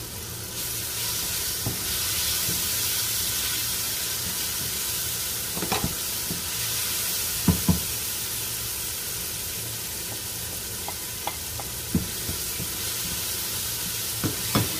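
Chopped mushrooms and onions sizzling in a hot wok, stirred with a wooden spatula that knocks and scrapes against the pan now and then.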